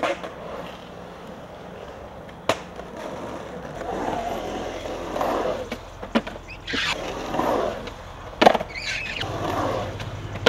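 Skateboard wheels rolling and carving through a concrete bowl, the rolling noise swelling and fading in waves, with sharp clacks of the board striking the concrete and coping on take-offs and landings, the loudest about eight and a half seconds in.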